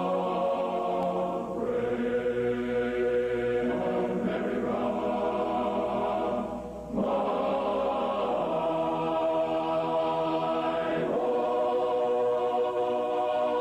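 Music of slow, held choir-like chords, shifting to a new chord every few seconds, with a brief dip about seven seconds in.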